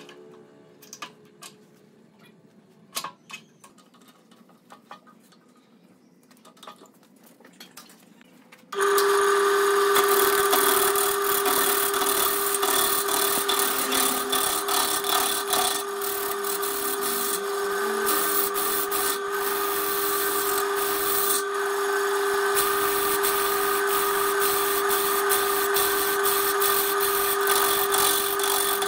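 Scattered light clicks and knocks as the wood blank is handled and fitted on the lathe. About nine seconds in, the sound jumps to the loud, steady hum of a BURT wood lathe, with the rough rasp of a turning tool cutting the spinning wood blank over it.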